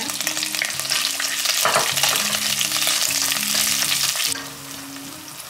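Rawon spice paste sizzling in hot oil with lemongrass and kaffir lime leaves, stirred around an enamelled pot with a silicone spatula. The sizzle is loud at first, then drops to a lower level a little past four seconds in.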